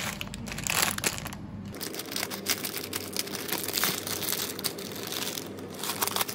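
Dry instant-noodle block being crushed by hand inside its plastic Koka packet: a continuous run of crackling and crunching mixed with the wrapper's crinkle.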